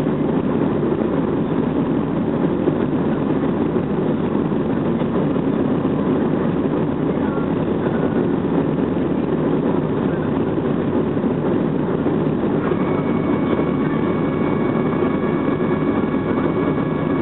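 Steady cabin noise inside a Boeing 737-300 climbing out after takeoff: the deep, even rumble of its CFM56 turbofan engines and the rush of air past the fuselage. About 13 seconds in, a few faint high steady tones join in.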